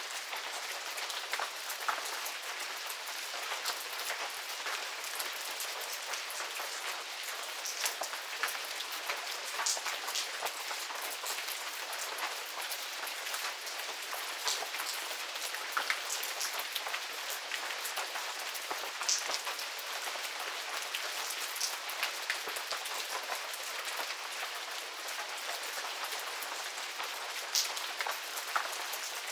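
Medium rain falling steadily in a garden: an even hiss of rainfall with many close, sharp drop ticks scattered through it.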